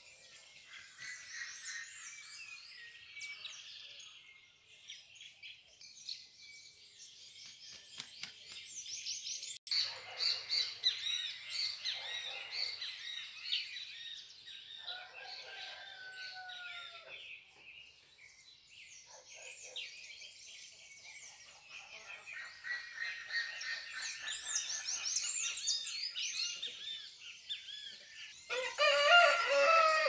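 Many small birds chirping and twittering at once, with the calls thick and overlapping. About halfway through comes a drawn-out note that falls slightly, and near the end a louder, lower-pitched call.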